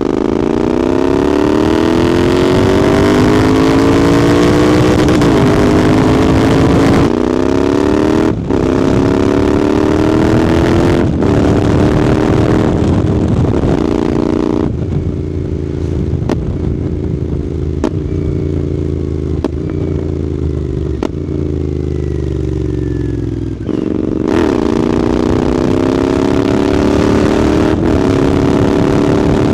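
Royal Enfield twin-cylinder motorcycle with a Red Rooster aftermarket exhaust, ridden hard: the exhaust note rises through several gears with a short dip at each shift, eases off with falling pitch for several seconds past the middle, then pulls up through the revs again near the end.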